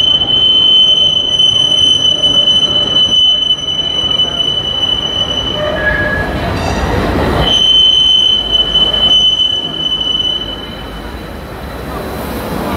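A Munich tram's wheels squealing on a curve in the track as it rolls past: a steady high-pitched squeal over the rumble of the tram, breaking off briefly about six seconds in, then returning and dying away a few seconds before the end.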